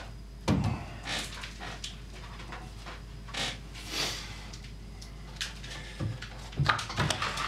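A heavy wooden beam knocking and scraping against the timber framing as it is lifted into place overhead, with a few knocks about half a second in and a cluster near the end. Short puffs of hard breathing from the effort come in between.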